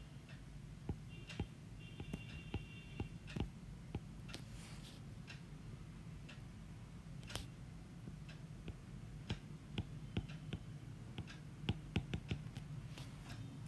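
Scattered light clicks and taps at an irregular pace from drawing and writing, over a steady low hum.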